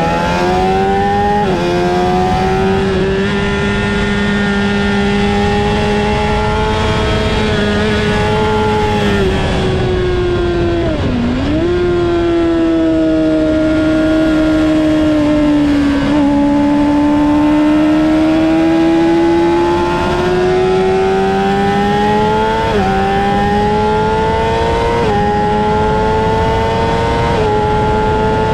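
2008 Honda CBR600RR's inline-four engine at hard throttle, with wind noise. The revs climb and drop back with each quick upshift. Around ten seconds in they fall away under braking and downshifts, then climb again through the next gears.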